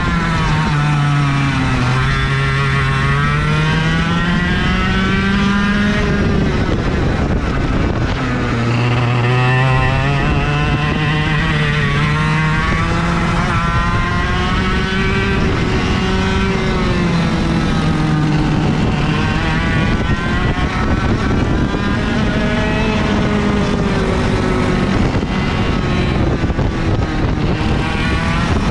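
IAME KA100 kart engine, a 100cc two-stroke, heard from on board at racing speed. The revs climb along the straights and drop for the corners, over and over.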